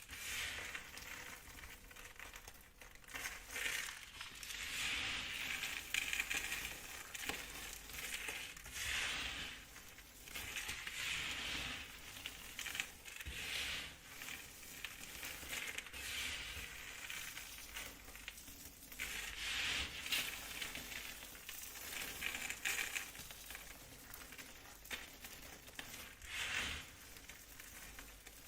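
A knife cutting through bars of soap: about ten crunching, scraping strokes a couple of seconds apart.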